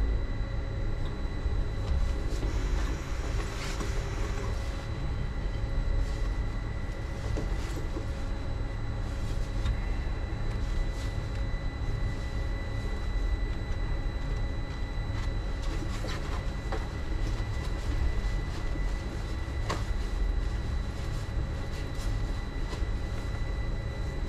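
Inside a Uijeongbu Light Rail car, a rubber-tyred VAL automated train running along its guideway: a steady low rumble with a constant high-pitched whine from the drive. A few clicks and knocks from the running gear come through along the way.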